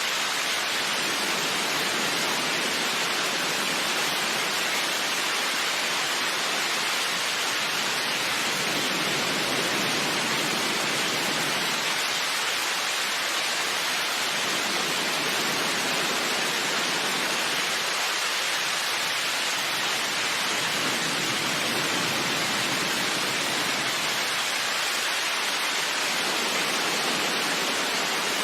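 Steady heavy rain, an even unbroken hiss with no single drops or thunder standing out.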